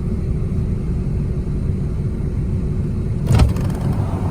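Steady low rumble of vehicle engines and traffic, with one short, loud thump a little over three seconds in.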